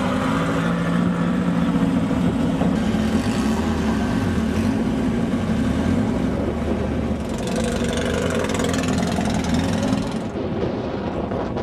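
A vehicle engine running steadily at a low pitch that wavers slightly. A rushing noise rises over it from about halfway through and drops away near the end.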